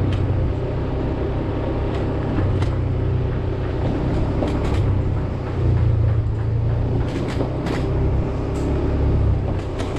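Motorbike ridden slowly on a concrete road: a steady low engine and wind rumble that swells and eases, with a few brief sharp clicks and knocks.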